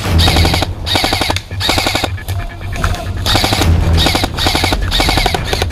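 Airsoft electric rifles firing in short full-auto bursts, about seven in a row, each a rapid rattle about half a second long.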